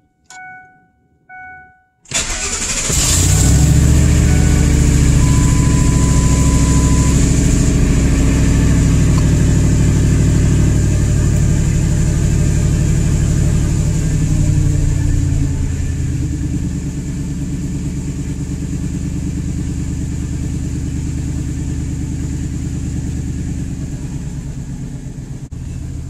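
Two short chimes, then the 1998 Ford F-150's 5.4L Triton V8 cranks and starts about two seconds in. It runs at a high idle, then settles to a lower, steady idle about halfway through. It sounds great, its vacuum leak at the PCV valve hoses just fixed.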